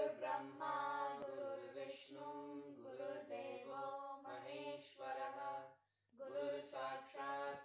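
Devotional prayer chanted in unison by girls' voices with a man's, sung to a simple melody with no accompaniment; the phrases break briefly about six seconds in.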